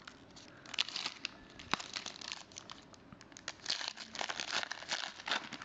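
Crinkling of a foil trading-card pack wrapper as it is handled and torn open, in irregular crackles that grow denser near the end.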